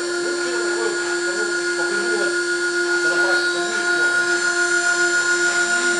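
High-speed milling spindle on a CNC lathe running with a steady whine of several fixed pitches, its bit cutting into a wooden cylinder turning in the chuck.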